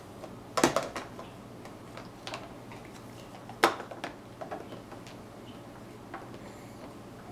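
A few light clicks and knocks on a plastic high-chair tray, with the loudest a single sharp knock about three and a half seconds in as a baby bottle is set down on the tray.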